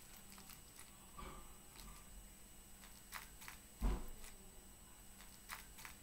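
Milk poured from a small cup over a plate of dry bird seed: faint scattered ticks and small crackles, with one dull thump about four seconds in.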